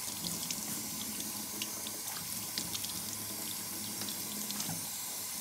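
Kitchen faucet running steadily into a stainless steel sink, the stream splashing over a puppy being rinsed under it, with small drips and splashes scattered through.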